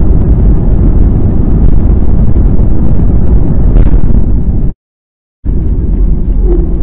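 Loud, steady rumble of an airliner's jet engines heard from inside the cabin during a takeoff roll in which one engine stalls and catches fire. The sound cuts out completely for about half a second near five seconds in.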